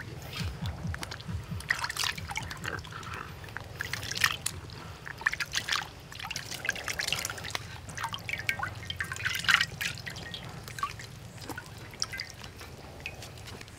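Water splashing and dripping as a pig's head is rubbed clean by hand in a shallow wok of water, with irregular splashes and drips over a steady low hum.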